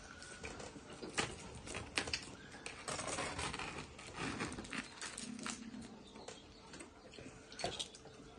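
Scattered small clicks and rustles of baked whole fish being pulled apart by hand and with a knife on a foil-lined metal baking tray.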